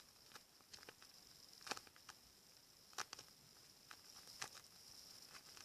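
Faint, scattered crinkles and taps of a homemade taped paper squishy being handled, a few separate clicks a second or so apart.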